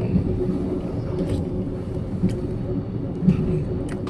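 Steady rumble of a moving passenger train heard from inside a sleeper compartment, with a steady hum and a few light clicks.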